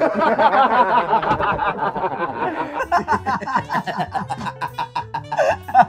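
Several men laughing hard together, loud overlapping laughter that is thickest in the first few seconds and then trails into separate fits of laughing.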